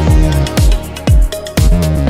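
Electronic background music with a steady beat, a deep kick drum about twice a second under a bass line.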